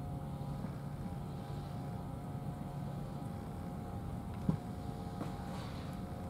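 Steady low mechanical hum with a few faint ticks and one sharper click about four and a half seconds in.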